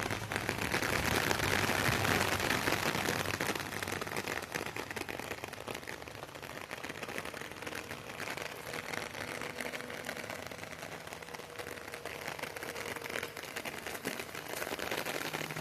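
Heavy rain falling steadily, a dense patter of many drops, a little louder in the first few seconds.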